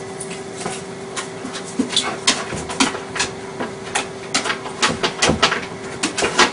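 A Bouvier des Flandres service dog opening a door on command: a run of irregular clicks and knocks, several a second.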